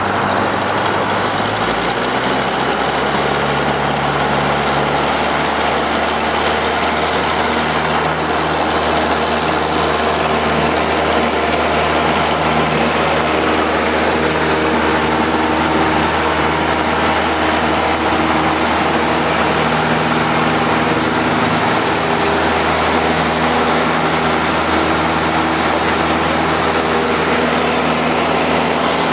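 Cessna single-engine light aircraft's piston engine and propeller heard from inside the cabin during takeoff. The engine note rises about two seconds in and then holds steady at full power through the takeoff roll and lift-off.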